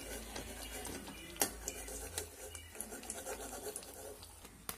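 Brinjal bajji being scooped out of hot frying oil: the oil crackles faintly, with a couple of sharp clicks, one about a second and a half in and another near the end.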